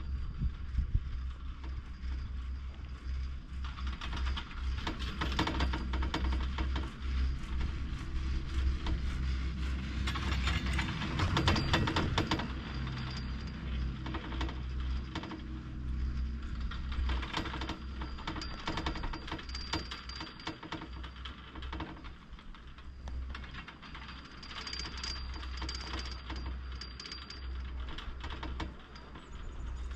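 Poma fixed-grip double chairlift running: a rattling, clicking clatter of the haul rope and chair grips rolling over the tower sheaves, densest and loudest about ten to thirteen seconds in, over a low wind rumble on the microphone.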